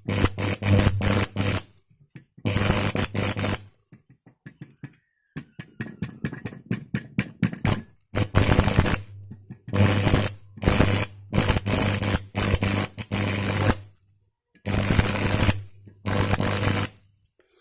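Stick welding with a homemade arc welder wound from a Lioa 3 kVA transformer: the arc crackles and sizzles in runs of one to two seconds over a low hum, breaking off between runs. In the middle comes a stretch of quick clicks as the rod is tapped and struck to restart the arc.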